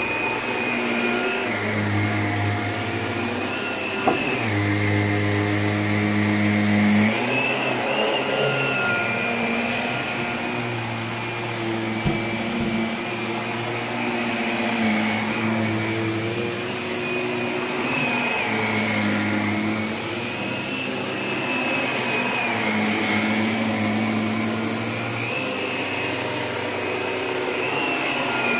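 Shark upright vacuum cleaner running over carpet. Its motor whine rises and falls in pitch every few seconds as it is pushed back and forth. Two brief sharp clicks come in the first half.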